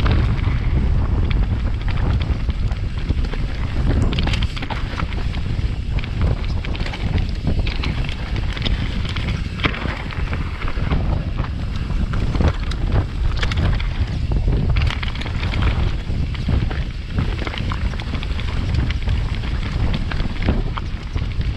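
Wind buffeting a helmet-mounted GoPro's microphone as an NS Define enduro mountain bike descends a dirt trail, with tyres on the ground and the bike clattering and rattling over bumps throughout.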